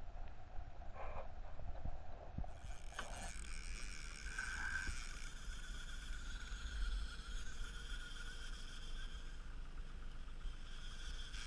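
A small fishing boat's motor running steadily under a low wind rumble, with a few light knocks in the first three seconds; about two and a half seconds in, a steady high whine from the motor comes in and holds.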